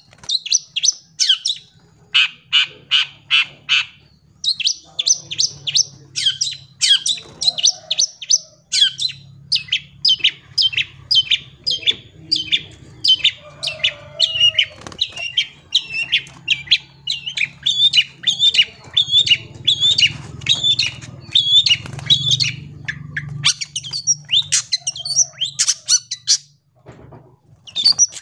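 Long-tailed shrike (cendet) singing a fast, chattering run of sharp, repeated notes, several a second, broken by short pauses, over a faint low hum.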